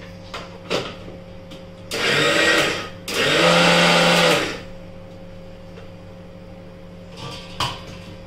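Electric mixer grinder run in two short pulses, about a second and a second and a half long, grinding dry pieces of bhakri flatbread coarsely. A few clicks and knocks from the steel jar being handled come before and after.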